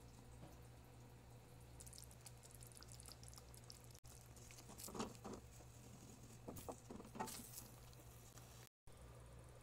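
Faint spluttering and popping of thick masala paste cooking in a steel pot, with a few short, louder crackles and scrapes from a spatula stirring it, around five and seven seconds in, over a low steady hum.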